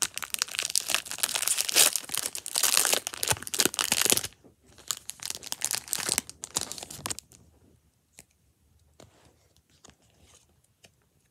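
A Pokémon trading-card booster pack's foil wrapper being torn open and crinkled for about four seconds, then more crinkling after a short pause. Near the end there are only faint light taps as the cards are handled.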